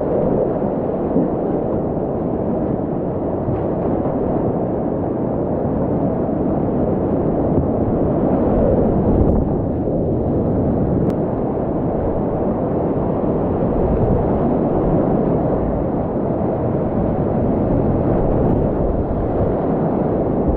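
Whitewater river rapids rushing, heard close up from a kayak in the middle of them: a loud, steady roar of water.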